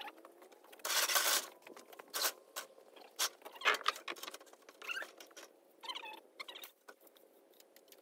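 Scattered scratchy scuffs, taps and rustles from someone climbing a metal rolling scaffold, with a louder rustle about a second in.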